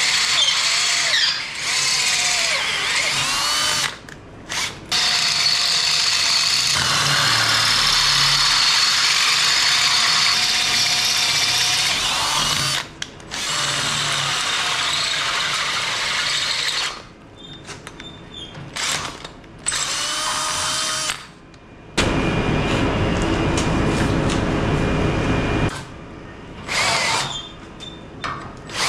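Cordless drill boring through a hand-forged steel bumper bracket held in a vise, the hole being opened up step by step toward 1/2 inch. The motor runs in long bursts with its pitch wavering as the bit bites, stopping briefly several times, with a harsher, lower-sounding stretch near the end.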